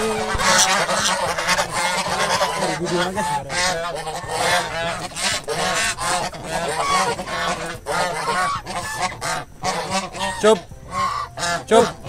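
A flock of domestic geese honking, many short calls overlapping in a continuous clamour, with a few louder honks near the end.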